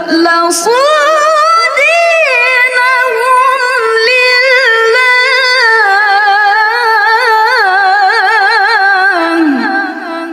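A woman reciting the Qur'an in the ornamented, sung mujawwad style. After a short break at the start, her voice holds one long melismatic phrase: it climbs about two seconds in, wavers in rapid trills, then falls and fades near the end.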